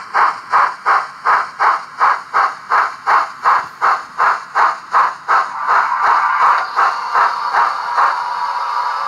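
Steam exhaust chuffs of a Digitrains LMS Coronation Class 'Duchess' sound project on an ESU LokSound decoder, played through a model locomotive's speaker as it runs. The chuffs come about three a second and quicken, running together into a continuous rush about halfway through as the locomotive speeds up.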